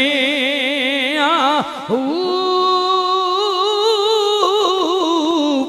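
A man singing a Punjabi devotional verse unaccompanied, with heavy vibrato. He climbs to a long, high held note about two seconds in and slides back down near the end.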